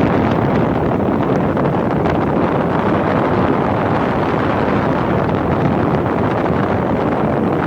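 1972 Emerson Quiet Kool Modulaire 10,000 BTU window air conditioner running, its fan blowing a steady rush of air while the unit cools.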